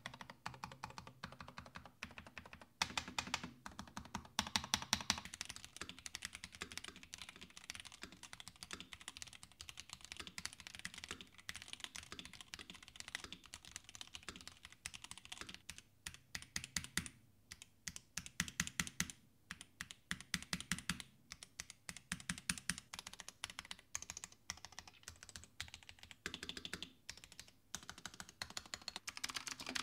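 Typing sound test on a Glorious GMMK 3 HE gaming keyboard with lubed Glorious Fox HE magnetic (Hall-effect) switches and PBT keycaps in a gasket-mounted plastic case. Fast keystrokes come in bursts with brief pauses, giving a deep, full "tok" tone.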